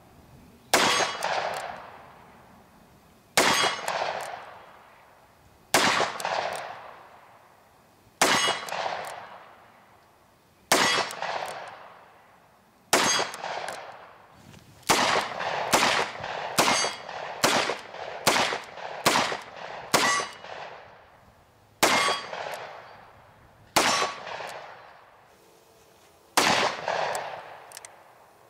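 Shots from a Smith & Wesson 686-6 seven-shot .357 Magnum revolver with a 4-inch barrel, each sharp crack trailing off in a long echo. Single shots come about every two and a half seconds, then a fast string of roughly two shots a second in the middle, then slow single shots again.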